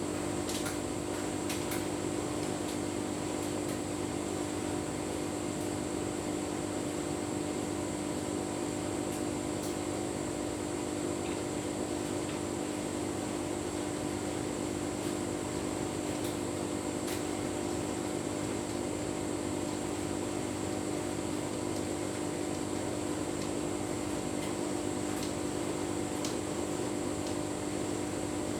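Tumble dryer running steadily with a full load of bedding: an even motor and drum hum with occasional faint ticks.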